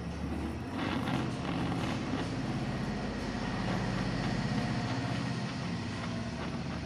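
Oxy-acetylene welding torch flame burning steadily on a copper sheet: a continuous hiss over a low rumble.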